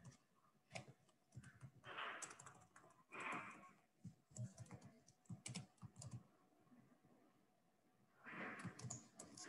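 Faint typing on a computer keyboard: scattered keystroke clicks with a few short, soft rushes of noise between them. The typing pauses for about a second and a half near the end.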